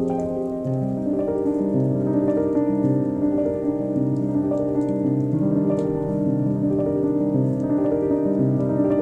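Background music: slow, sustained piano notes changing about once a second.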